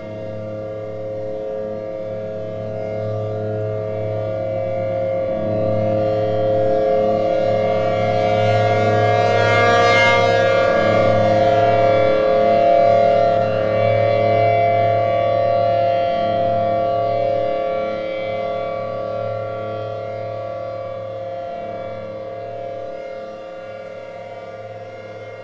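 ACA P50 outdoor warning siren sounding a steady tone on test, swelling to its loudest about halfway through and then fading.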